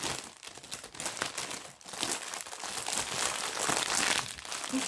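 Cross-stitch kit packaging crinkling and rustling as it is handled, in rapid irregular crackles.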